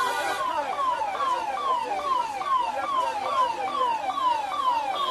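Vehicle siren sounding a rapid repeating pattern of falling wails, about two a second.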